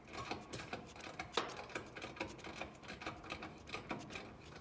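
Rapid, irregular metal clicks and ticks of a tool turning the service valve stems open on a new air-conditioner condensing unit, with one sharper click about a second and a half in.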